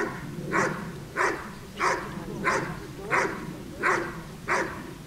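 A large dog barking steadily and rhythmically at the helper in the blind, about one and a half barks a second, the hold-and-bark of an IPO protection exercise.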